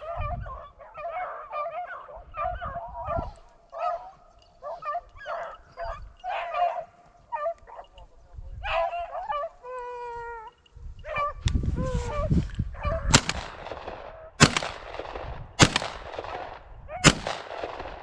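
Rabbit hounds baying in full cry on a running rabbit, a string of short repeated bawls with one long falling howl about ten seconds in. In the last few seconds, close rustling with four loud sharp cracks about every second and a half.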